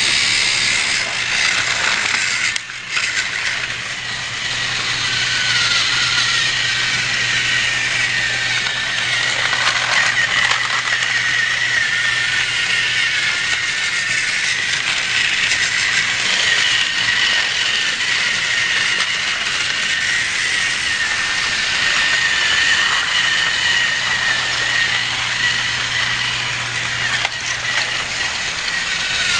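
Battery-powered Trackmaster toy train running on plastic track: a steady high motor whine with the rattle of its gears and wheels, dipping briefly about three seconds in.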